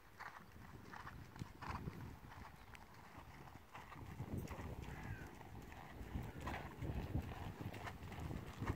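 Hoofbeats of a ridden horse moving around a loose-surfaced riding arena, a regular run of soft strokes.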